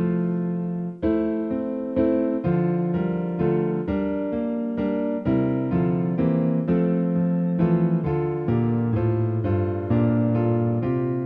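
Digital keyboard playing a slow piece in a piano voice: sustained chords, with a new chord or note struck about every half second to a second.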